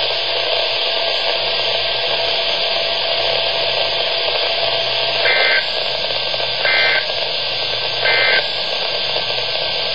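Steady radio hiss, then three short, identical EAS (SAME) data bursts about a second and a half apart, starting about halfway through: the end-of-message code that closes an Emergency Alert System alert.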